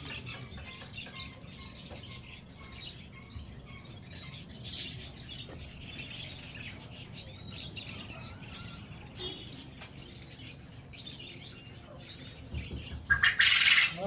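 Many caged pet birds chirping and twittering in quick, overlapping calls. A short, loud, harsh burst stands out near the end.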